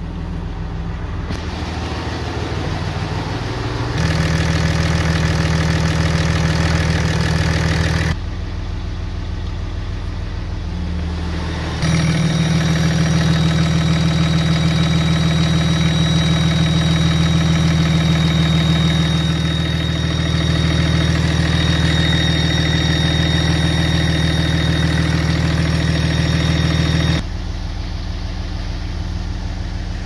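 6.7-litre Cummins turbo-diesel idling with the exhaust brake switched on, a faint thin high squeal over the steady engine note. The squeal is the fault being chased, one that shows up when the exhaust brake is activated. The sound steps louder twice for several seconds, as the engine bay comes close.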